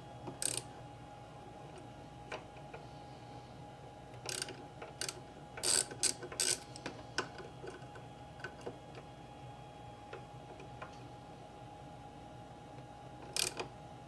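Socket ratchet clicking in short runs as it turns a 2.5 hex bit to loosen small stand screws. There is a click about half a second in, a cluster of clicks in the middle and a few more near the end.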